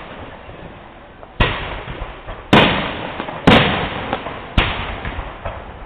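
Aerial firework shells bursting: four sharp bangs about a second apart, each trailing off in a long fading echo.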